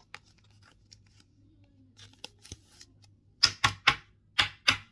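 Light rustling and small clicks of a card and penny sleeve being handled, then five sharp plastic clicks in about a second and a half near the end as a rigid plastic top loader is tapped and set into a clear plastic card stand.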